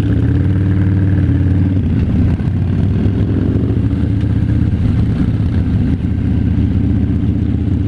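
Harley-Davidson V-twin motorcycle engine running steadily on the road, its pitch shifting only slightly.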